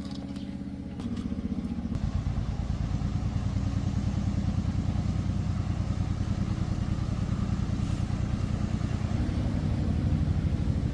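Restored motorcycle engine running. The throttle opens about a second in and the engine then holds at a higher speed, with a fast, even firing beat.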